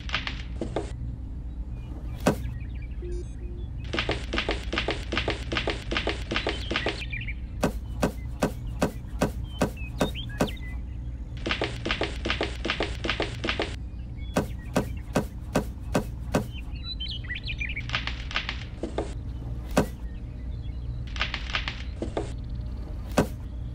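Gritty crunching and rapid clicking as toy carrots are pressed into sand, in three runs of two to three seconds with scattered single clicks between, over a steady low hum.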